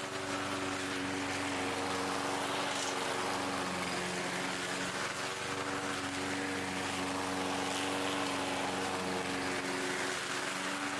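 Toro 22-inch walk-behind rotary mower running steadily while cutting grass, a steady engine hum under a broad hiss.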